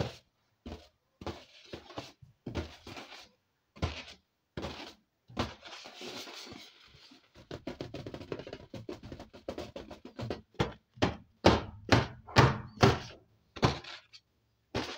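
Hands patting, squeezing and rubbing an inflated latex balloon: irregular dull thunks, a stretch of close, dense rubbing in the middle, and louder thumps after about eleven seconds.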